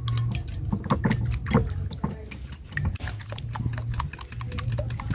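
Wire balloon whisk beating egg yolks in a white ceramic bowl: fast, irregular clicking of the wires against the bowl.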